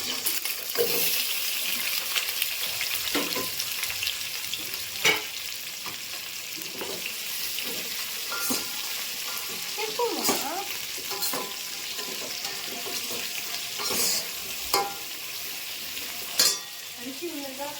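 Sliced onions and whole spices sizzling in hot oil in a pan, stirred with a spatula that knocks against the pan now and then.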